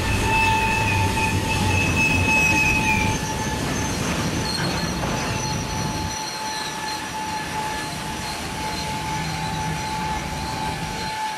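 Norfolk Southern freight train cars rolling past with a steady high-pitched wheel squeal. A low rumble underneath drops away about six seconds in, leaving the squeal and rolling noise.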